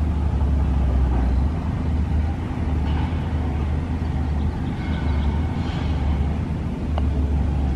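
A steady low rumble, and a single sharp tap near the end as a putter strikes a golf ball.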